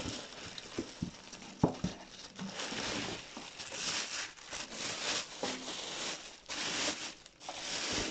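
Thin plastic bag crinkling and rustling as it is handled and pulled back off a heavy boxed unit, in many short bursts, with one sharp knock about one and a half seconds in.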